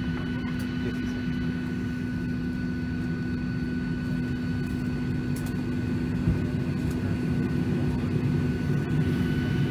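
Boeing 737-800 cabin noise on the ground before takeoff: a steady rushing hum with a constant low drone tone and a fainter high whine, growing slightly louder from about six seconds in.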